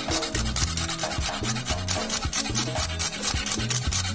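Fork scraping against a stainless steel bowl while tossing sweet potato strips, a quick run of scratchy strokes, over background music with a repeating bass line.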